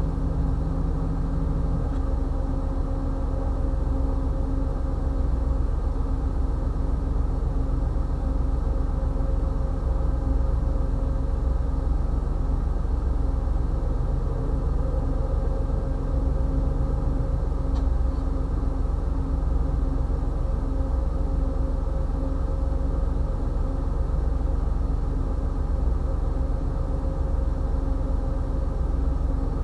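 GE Genesis diesel locomotive idling at a standstill: a steady low rumble with a held hum.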